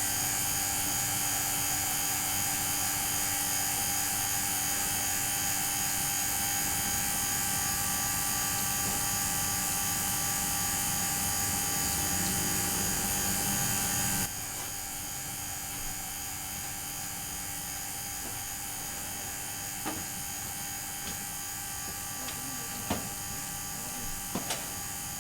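Steady electrical buzzing hum with several high whining tones held level throughout; it drops noticeably in level about fourteen seconds in, and a few faint clicks come near the end. It is the sign of an electrical fault that may be a short circuit, though a short would be expected to have burned something by now.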